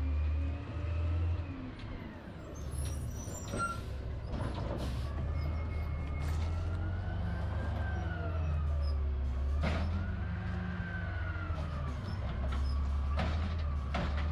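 Road vehicle noise under a steady low rumble, with a whine that rises and falls in pitch several times and a few sharp knocks.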